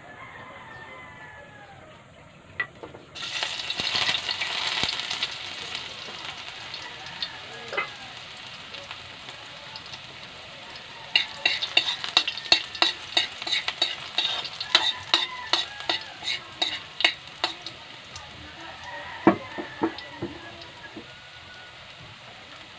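Chopped garlic and onion hit hot oil in a metal wok and start to sizzle suddenly about three seconds in. Later they are stirred, and a utensil scrapes and taps against the wok in quick repeated clicks over the steady frying hiss.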